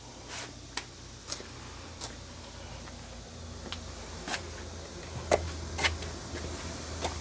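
Scattered light clicks and knocks, about nine at uneven intervals, over a faint low hum that comes in about halfway through.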